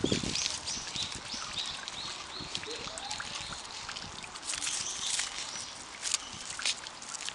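Yakushima sika deer munching leaves and nibbling a fern frond, a run of short crisp crunches with the rustle of the leaves.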